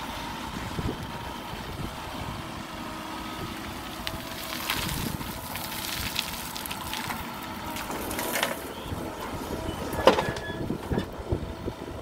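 Mahindra SX90 backhoe loader's diesel engine running as the backhoe digs and lifts a bucket of gravel, with gravel crunching and scraping against the bucket. A loud knock stands out about ten seconds in.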